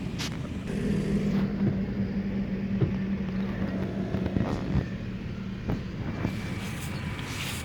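Tata Indigo CS car's engine running with a steady note, with several short knocks through the run, as when driving over rough ground.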